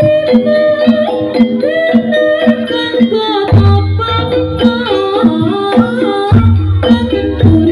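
Jaranan ensemble playing an instrumental passage over a sound system: hand-drum strokes under sustained melody notes, with a deep bass coming in about three and a half seconds in and again just past six seconds.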